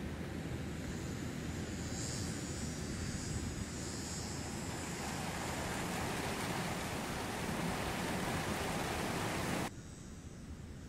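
Outdoor field recording of a steady, even rushing noise, with a faint high hiss for a few seconds early on. It swells slightly and then cuts off abruptly near the end, leaving quieter room tone.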